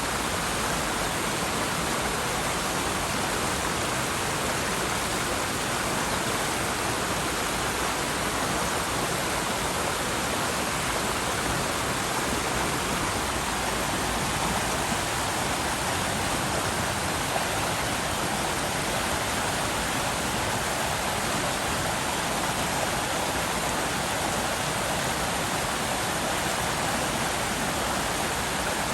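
River flowing steadily, a constant even rush of water with no let-up.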